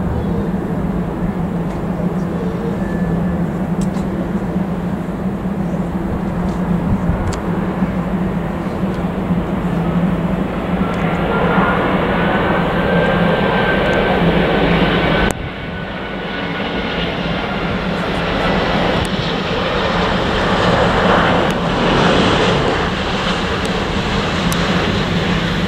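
Airbus A350 airliner with Rolls-Royce Trent XWB turbofans on landing approach: a steady jet roar with a high engine whine that rises and then falls as it passes close by. After a sudden cut about fifteen seconds in, the jet noise swells again as the aircraft rolls down the runway after landing.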